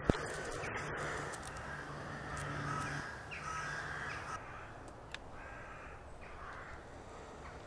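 Crows cawing in the roost trees, several separate calls through the second half. A single sharp click right at the start.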